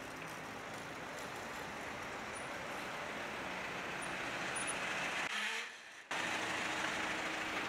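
Steady city street noise with road traffic, growing slightly louder. About five seconds in it drops out abruptly for under a second, then returns at once.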